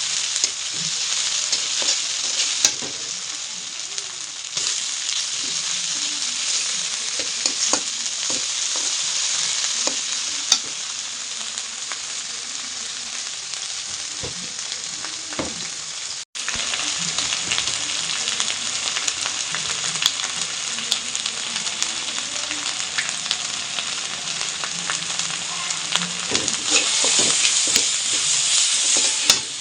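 Food sizzling as it fries in hot oil in a pan, with the sharp clicks of a spatula stirring and turning it against the pan now and then. The sound cuts out for an instant about halfway through.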